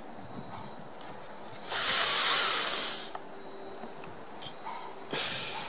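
A loud burst of hissing, like a spray, lasting about a second and a half, then a second shorter hiss that starts suddenly near the end and fades.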